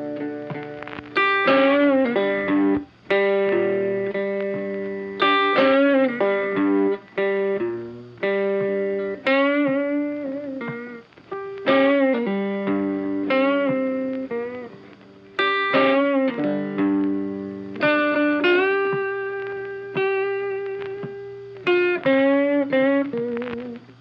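Background music: a melody of plucked notes, each starting sharply and ringing away, in repeating phrases.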